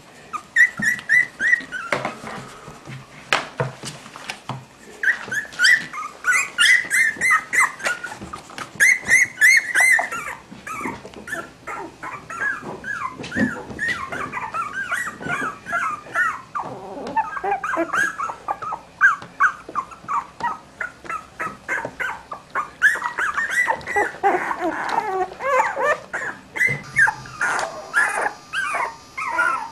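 A litter of three-week-old Cavalier King Charles Spaniel puppies whimpering and squeaking: many short, high calls in quick runs, thinning out for a few seconds early on and then going on almost without a break.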